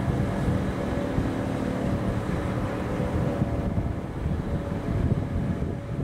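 Strong wind gusts buffeting the microphone in a heavy rumble. A faint, steady outdoor warning-siren tone sounds under it without changing pitch.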